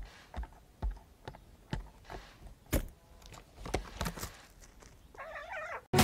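Hawaiian crows (ʻalalā) pecking and probing at a wooden log with their beaks: a run of irregular sharp taps, then a short wavering crow call near the end.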